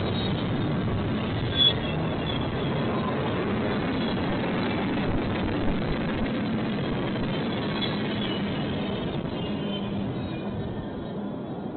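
A train rolling past on the rails, a steady clatter of wheels on track with a brief sharp clank about two seconds in, then thinning out and quietening near the end.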